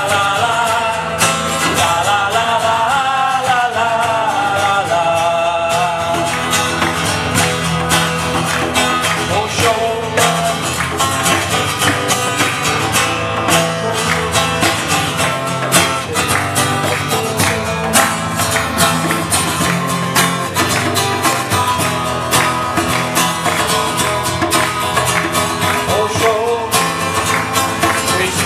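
Music with plucked and strummed guitar and singing, a dense steady beat of strokes; the sung melody is clearest in the first few seconds.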